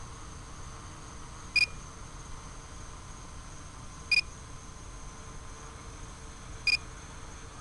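A short, sharp electronic beep repeating evenly about every two and a half seconds, three times, over a steady background hiss.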